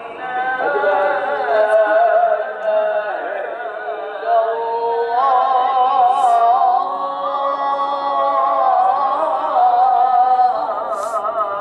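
A single voice singing a slow, ornamented melody with strong vibrato, a background music track.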